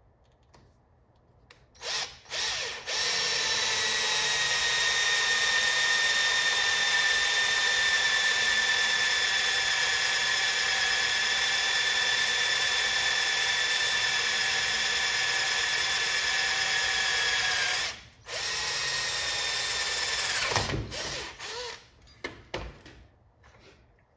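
Power drill with a 5/8-inch bit boring through a piece of wooden dowel: two short pulls of the trigger, then a steady high whine for about fifteen seconds, a brief stop, and a few more seconds of drilling that winds down. A few knocks near the end.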